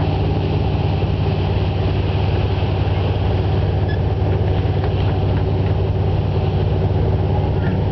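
Car ferry's engines droning steadily, a deep constant hum heard on board.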